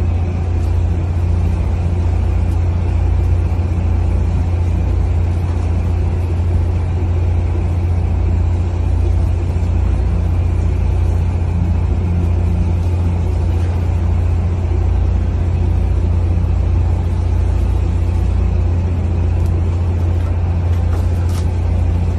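A fishing boat's engine running steadily: a loud, even low drone that does not change, with a few faint clicks near the end.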